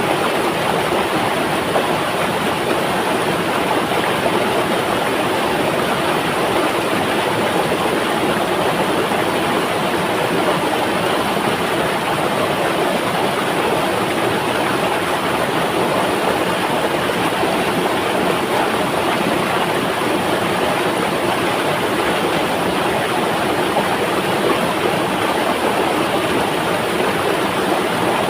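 A river flowing, a steady even rush of water with no breaks or single splashes.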